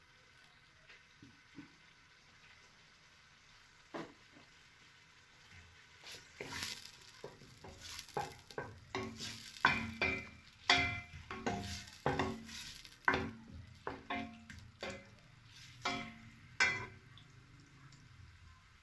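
A spoon stirring onions frying in oil in a metal cooking pot. From about six seconds in until about seventeen seconds, the spoon knocks against the pot in quick, repeated strokes, each with a short metallic ring.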